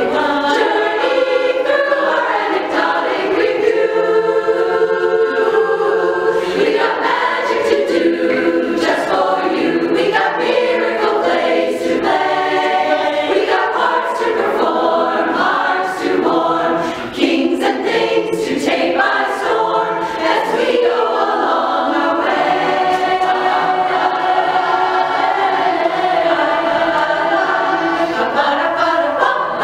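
A women's barbershop chorus singing an up-tempo song a cappella in close harmony, with many voices together.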